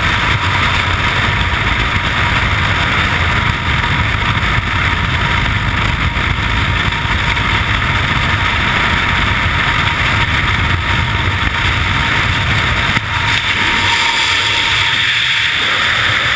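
Freefall wind rushing over a helmet-mounted camera's microphone, a loud steady rush. About thirteen seconds in it changes and the low rumble drops away as the parachute opens and the fall slows.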